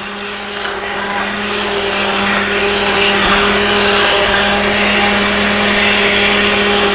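Handheld immersion blender running steadily with a constant motor hum, pureeing thick, hot butternut squash soup in a pot. The churning noise grows louder over the first few seconds, then holds steady.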